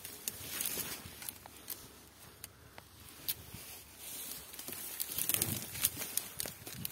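Footsteps through dry fallen leaves: uneven rustling and crunching of leaf litter underfoot with scattered sharp crackles, busier in the second half.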